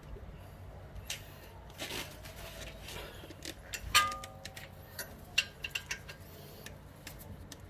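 Metal tools clicking and clinking on a car's brake caliper bracket and its bolts, with one sharp, ringing metal-on-metal knock about four seconds in and a few smaller clicks after it.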